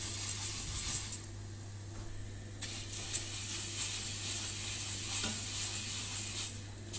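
Vermicelli frying in oil in a stainless steel pot, sizzling and scraping as a spatula stirs it. The hiss drops away for a moment about a second in and again near the end.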